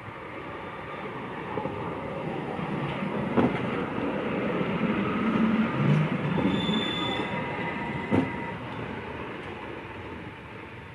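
A tram rolling through a tight turning loop on old track, its noise swelling and then fading as it passes. Its wheels give a brief high squeal on the curve about two-thirds of the way through, and there are three sharp knocks.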